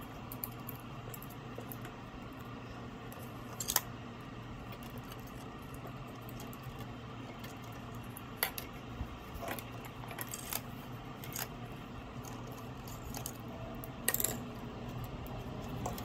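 Light metallic clicks and clinks from a metal hose clamp being handled and fitted around a corrugated plastic drain hose, scattered throughout, with a few louder clinks spread through.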